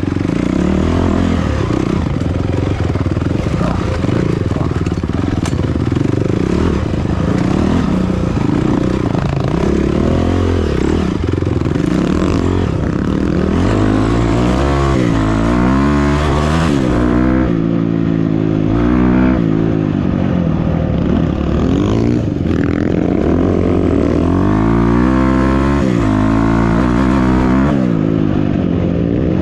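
Off-road vehicle engine running loud, its pitch rising and falling again and again as it revs up and eases off.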